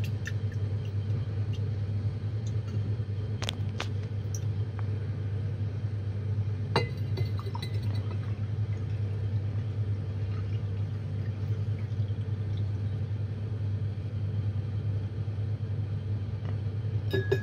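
A steady low hum throughout, with a few light clinks of glass jars being handled as rinse liquid is swirled and poured off the gold powder from one jar into another.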